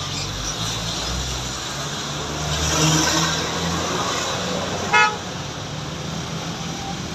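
Roadside traffic with a vehicle passing, then one short horn toot about five seconds in, the loudest sound.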